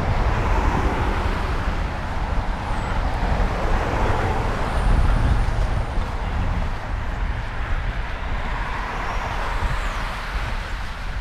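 Road traffic noise: vehicles going by on the road, with a steady low rumble that swells in the middle.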